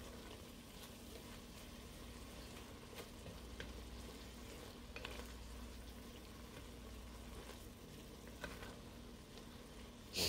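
Spinach and cherry tomatoes sautéing quietly in butter, with a faint sizzle as a wooden spoon stirs and scrapes through them in an enamelled pot, giving a few light clicks. One louder knock comes at the very end.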